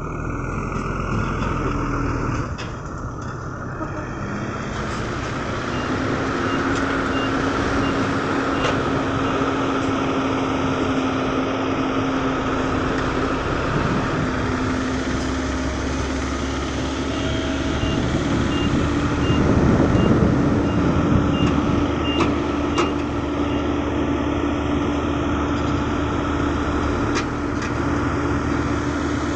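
Diesel dump truck engine running under load as the truck manoeuvres on dirt, with a reversing alarm beeping at an even pace through much of it. The engine gets louder about two-thirds of the way through.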